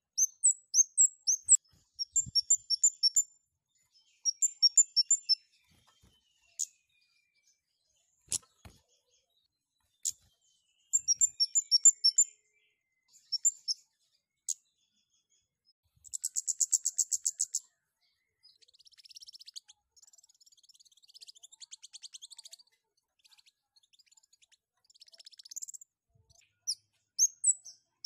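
Scarlet-headed flowerpecker (kemade) calling in breeding excitement: groups of thin, high-pitched chips in quick series, a rapid buzzy trill a little past halfway, then softer, scratchier twittering. A single sharp click about a third of the way in.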